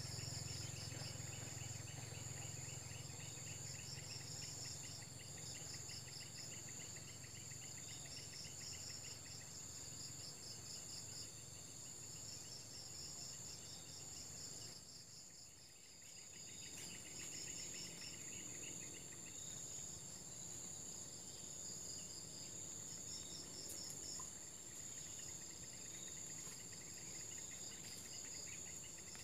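Insects chirping in a steady chorus: a high continuous whine with several pulsing trills over it. A low hum underneath fades out about halfway.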